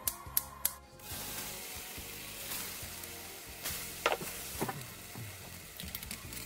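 Battered pieces of Spam deep-frying in hot oil in a steel wok: a steady sizzle that starts about a second in. A few light clicks of metal tongs moving the pieces come through the sizzle.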